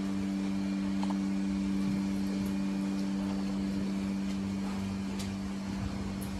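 Steady low electric hum of barn machinery, with a few faint clicks.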